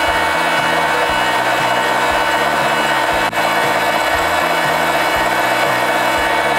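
Metalmaster MML 250x550 metal lathe running steadily with a constant whine while a centre drill in the tailstock drill chuck cuts a centre hole into the end of the spinning bar. A single short click comes a little over three seconds in.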